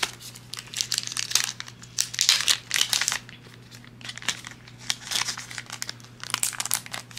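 Holographic foil zip pouch crinkling as it is handled and filled, in irregular bursts of sharp rustling.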